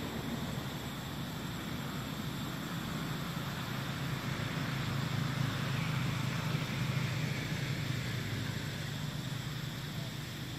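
Steady low outdoor rumble that swells in the middle and eases near the end, with a faint high steady whine above it.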